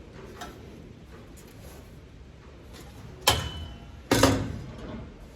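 Sheet-metal panel being worked by hand: two loud metallic clangs about a second apart, the first leaving a short ring.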